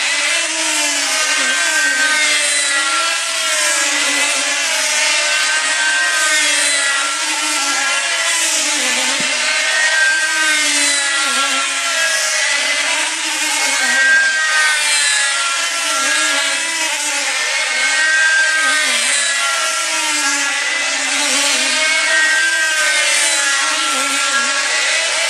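Several small diesel model aircraft engines on control-line combat planes running flat out together, a high buzzing whine. The pitch of the engines wavers up and down, and the sound swells and fades every few seconds as the planes circle.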